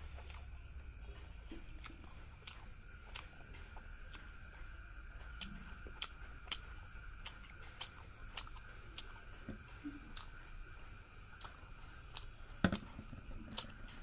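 Fingers mixing and pressing cooked rice on a steel plate: soft squishes with scattered sharp clicks, the loudest near the end, over a faint steady high hum.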